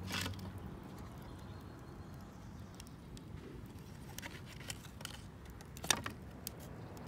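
Thin wooden slats knocking and scraping against brick as they are pushed by hand into a small wood kiln's firebox, scattered light clicks with a sharper knock about six seconds in, over a faint steady background noise.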